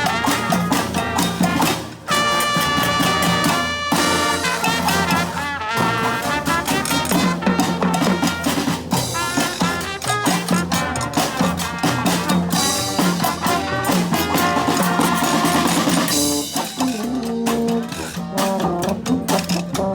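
Brass band playing live: horns over a drum beat. There is a short drop about two seconds in, followed by sustained horn chords.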